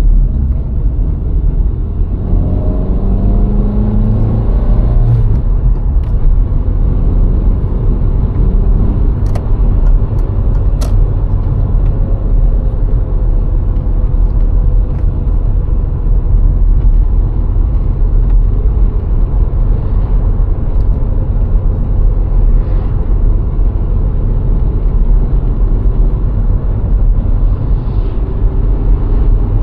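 VW Golf IV 1.6 four-cylinder petrol car driving, with a steady low engine and road rumble. The engine note rises for a few seconds near the start as the car accelerates, then settles into a steady hum. Two sharp ticks come about ten seconds in.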